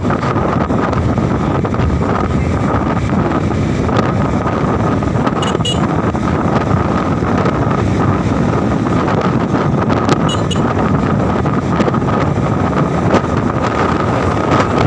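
Wind buffeting the microphone on a moving vehicle, over a steady rush of road and engine noise, with a thin steady whine running through it.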